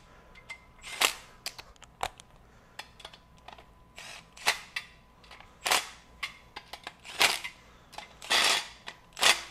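Milwaukee cordless impact tool running main-cap bolts down on a cast-iron LS engine block, in about seven short bursts, one per bolt, with brief pauses between them.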